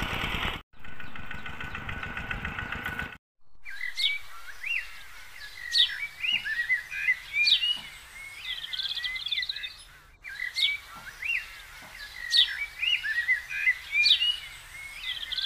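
Birds chirping, with many short calls and quick rising and falling whistled notes, the same run of calls seeming to repeat. For about the first three seconds a steady droning noise plays instead, cutting off abruptly.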